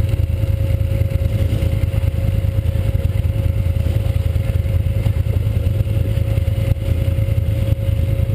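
ATV engine running steadily close by, a low even drone with no revving, and a thin steady whine above it that cuts off just after the end.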